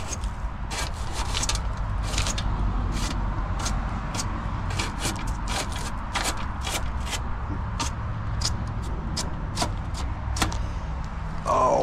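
Hands working inside an air-conditioning condenser's electrical compartment: a string of sharp clicks, small knocks and scrapes as nesting debris and parts are handled, over a steady low rumble.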